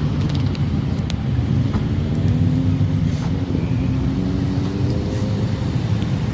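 Motorcycle engines running at low revs, a steady low drone whose pitch creeps up a little in the middle and then holds.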